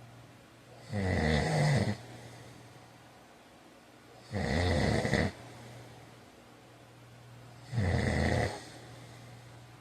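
A sleeping man snoring: three snores, each about a second long, coming roughly every three and a half seconds.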